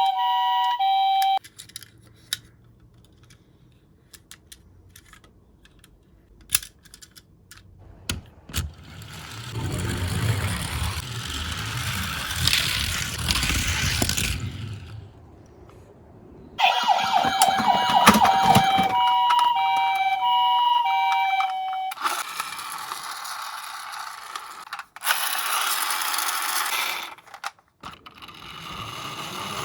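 A toy ambulance's electronic two-tone siren, alternating a high and a low note, sounds briefly at the start and again for about five seconds in the middle. In between come small clicks of the toys being handled and stretches of rumbling rattle from minicars rolling down a plastic slope.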